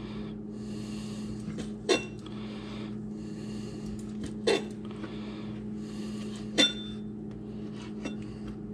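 Kitchen knife slicing an octopus tentacle into small pieces on a plastic cutting board, the blade knocking sharply on the board as it cuts through: three loud knocks a couple of seconds apart and a few lighter clicks near the end, over a steady low hum.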